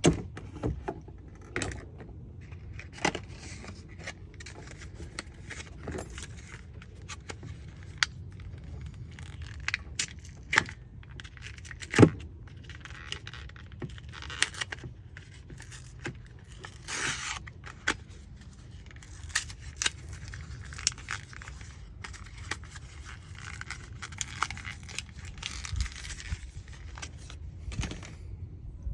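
Scattered small clicks, taps and scrapes of hands working a tail-light bulb out of its plastic socket and handling the bulbs, with one sharper click about twelve seconds in.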